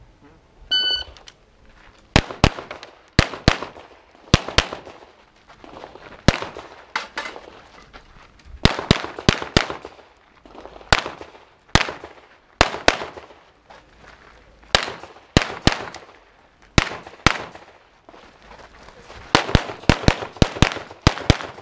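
An electronic shot-timer beep about a second in starts the run. Then come strings of handgun shots, mostly fired in quick pairs, with pauses of a second or so between groups as the shooter moves and changes targets.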